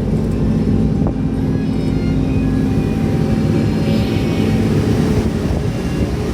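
Boat engine running steadily with a low drone.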